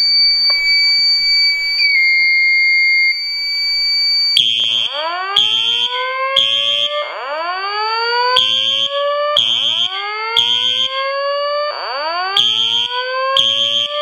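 A steady high electronic tone, dipping slightly in pitch about two seconds in, gives way after about four seconds to the fire alarm going off. A Simplex electronic horn blasts in the temporal pattern over a slow rising whoop tone from a Simplex speaker, four whoops in a row.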